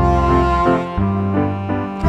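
Background music: a sustained melody over a held bass line, the notes changing every half second or so.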